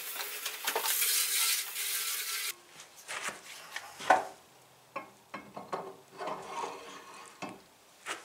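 Hand-work noises on an old cast-iron bandsaw: a rough scraping hiss for about two and a half seconds that cuts off abruptly, then scattered knocks, clicks and rubbing as the lower wheel is turned by hand, with one sharp knock about four seconds in.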